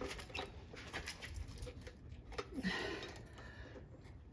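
Light metal clicks and clinks from handling a hand pop-rivet tool and rivets on a generator's pull-starter housing, with a strained, breathy grunt about two and a half seconds in as the rivet tool is squeezed hard.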